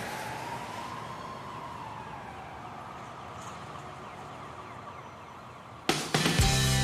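Rock song opening: a steady hissing rush with a faint whistling tone that rises and falls over the first couple of seconds, then about six seconds in the band comes in loudly with guitar and drums.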